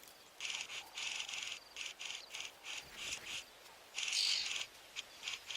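Oxpeckers calling at their nest: a run of short, harsh, hissing calls, with one longer call about four seconds in.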